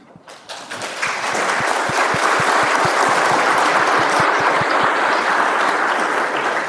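Audience applauding: a few scattered claps at first, building within a second or two into full, steady applause.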